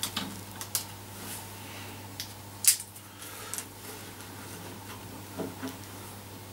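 Scattered light clicks and scrapes of a craft knife trimming a vinyl decal around a hole in a wooden pinball cabinet, with one sharper click about two and a half seconds in. A steady low hum runs underneath.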